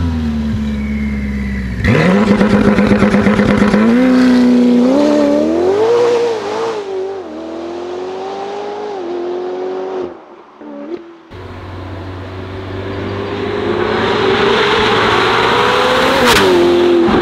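Ferrari F8 N-Largo's twin-turbo V8 through a Novitec exhaust, idling, then revving hard as the car pulls away, rising in pitch through the gears and fading into the distance. After a short lull the engine note swells again as the car comes back at speed, with a sharp crack near the loudest point.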